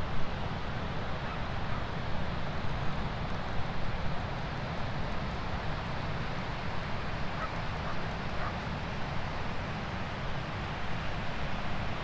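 Sea surf breaking and washing on the beach, a steady rush with a low rumble underneath. A few faint bird calls come through about a second in and again around seven to eight seconds.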